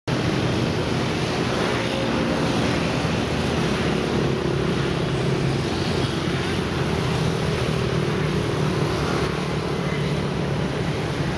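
An engine running steadily with a low hum, heard over a wash of wind and water noise.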